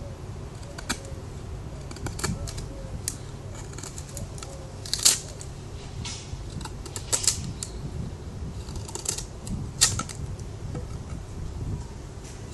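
Irregular sharp clicks and snaps of a Spyderco Paramilitary 2 folding knife being handled and used, the loudest about five, seven and ten seconds in.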